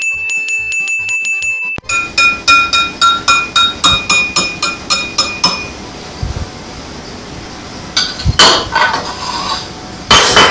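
Short stretch of background music with a steady beat, then a cut to a wire whisk clinking rhythmically against a ceramic mixing bowl, about three strikes a second, the bowl ringing with each hit. Near the end, kitchen utensils and plastic measuring cups clatter as they are handled.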